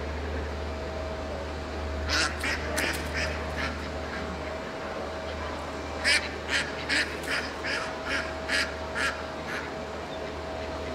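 Ducks quacking: a short run of quacks about two seconds in, then a longer series of about ten quacks from about six seconds in, over a steady low hum.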